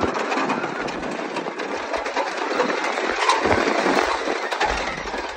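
A 1921 wooden roller coaster train running along its wooden track, rattling and clattering with a steady stream of sharp clicks.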